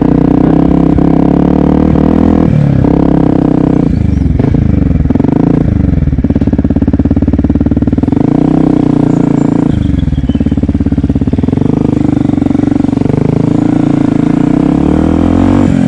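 Yamaha WR125X's single-cylinder four-stroke engine running under way, its revs rising and dropping back several times.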